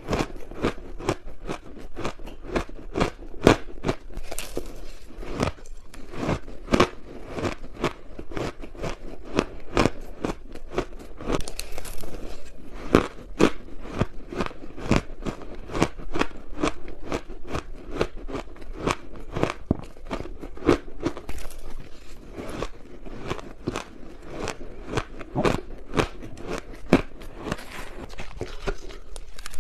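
A person biting and chewing blocks of blended ice close to the microphone, making dense, continuous crisp crunches with no pauses.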